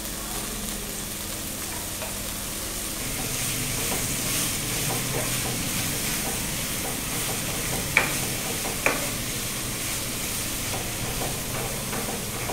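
Chopped green gram plant leaves and stems sizzling in hot oil in a frying pan while being stirred with a spatula. Two sharp knocks, about eight and nine seconds in.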